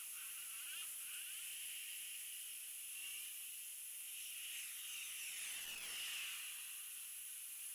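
Steady hiss of heavy rain. About five to six seconds in, a twin-engine jet airliner climbing out passes overhead, its noise sweeping down and back up in pitch as it goes by.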